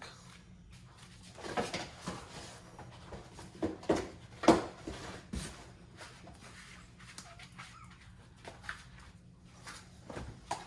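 Handling noise: rustling and scattered knocks as the metal air horn and its packaging are handled, with the loudest sharp click about four and a half seconds in.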